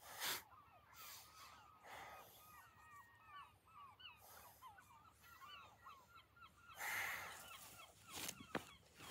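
Faint, distant flock of birds calling continuously, many short overlapping calls. Soft rushes of noise break in a few times, the strongest just after the start and about seven seconds in.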